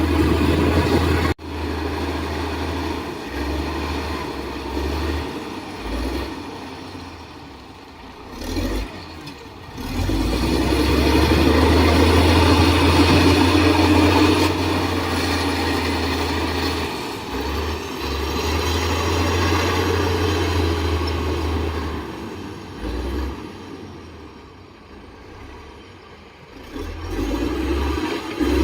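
Heavy diesel earthmoving machinery running, its engine working louder and softer by turns with a deep low rumble underneath. There is a sharp break in the sound about a second in.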